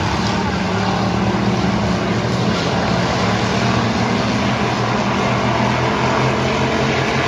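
Pack of pure stock dirt-track race cars racing around the oval, several engines running together in a steady, loud drone.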